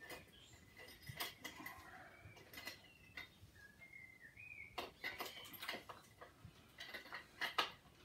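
Light, irregular clicks and taps of small metal parts as wheel nuts are started by hand on an RC truck's wheel hubs.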